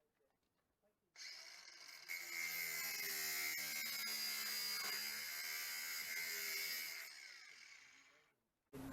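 Battery-powered power tool cutting the car's sheet-steel bodywork: it starts about a second in, runs steadily with a high whine, then winds down near the end.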